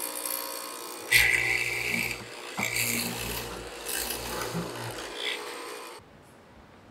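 Hollow-chisel mortiser boring a square mortise into hardwood: the motor runs under load while the auger and chisel grind and rasp through the wood in two long plunges. The sound stops suddenly about six seconds in.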